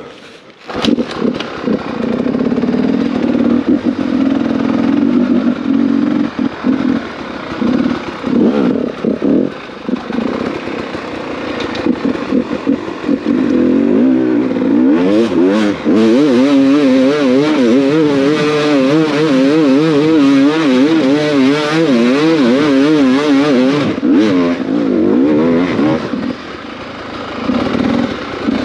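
Enduro dirt bike engine revving hard under load as the bike is ridden up a steep forest hill. About halfway through, the revs waver quickly up and down for several seconds as the throttle is worked, then they drop away near the end.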